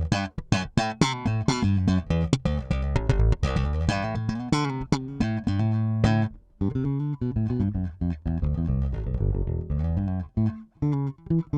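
Peavey T-40 electric bass played with slap-and-pop technique: a quick run of sharp, bright percussive notes. About halfway through there is a short gap, then a run of notes with less bite.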